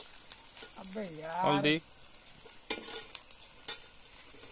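Metal spatula stirring and scraping a metal kadai of chicken curry frying over a wood fire, with a low sizzle. A few sharp scrapes of the spatula against the pan come a little under three seconds in.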